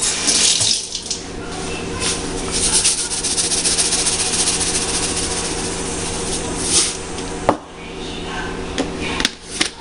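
Water running from a kitchen tap into the sink as a steady hiss, turned off with a click about three quarters of the way through.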